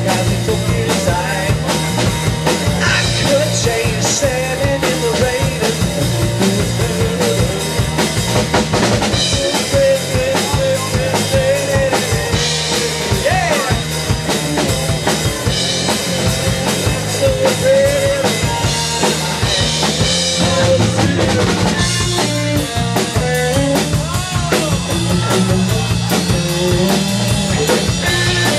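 A live rock band playing: electric guitar, electric bass and a drum kit with bass drum and snare, going without a break.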